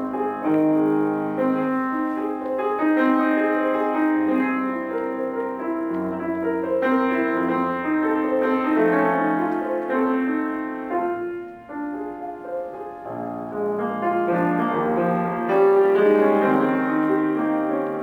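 Solo piano playing classical music, with moving, sustained chords and a brief lull about two-thirds of the way through.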